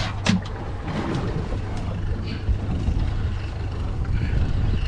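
Steady low rumble and wind noise aboard an open fishing boat at sea, with two or three sharp knocks just at the start.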